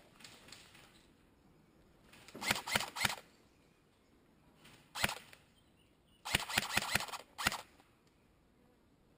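Airsoft guns firing: a quick burst of shots about two and a half seconds in, a single shot at about five seconds, another rapid burst around six and a half seconds, and a last single shot soon after.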